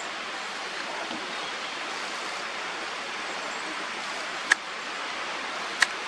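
Steady rushing background noise, with two sharp clicks about four and a half and nearly six seconds in; no birdsong stands out.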